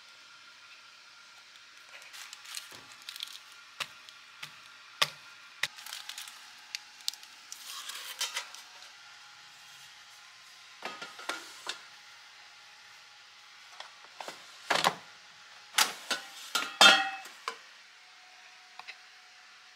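A cake pan and an air fryer's basket being handled on a countertop: scattered light clicks and knocks, with a louder run of clattering knocks near the end.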